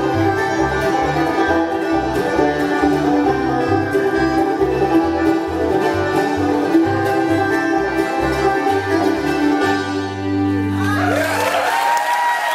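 A live bluegrass band plays without singing: banjo, fiddle, mandolin, acoustic guitar and plucked upright bass. The bass keeps a steady beat, and the band holds a long chord near the end.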